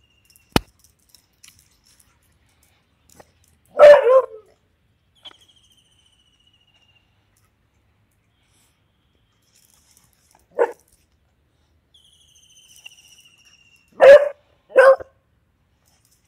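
Beagle barking in separate single barks: a loud bark about four seconds in, a shorter, quieter one near eleven seconds, and two loud barks in quick succession near the end.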